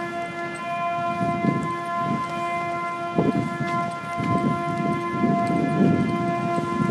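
A steady drone held at one unchanging pitch with several overtones, the unexplained 'strange sound'. Irregular low rumbling noise rises and falls beneath it, heavier from about three seconds in.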